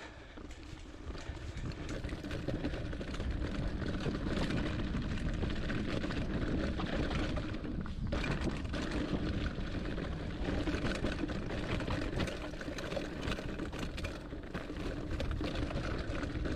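Hardtail mountain bike rolling down a rough dirt trail: steady tyre rumble on dirt and roots with dense rattling and clatter from the bike. It builds up over the first few seconds as speed picks up.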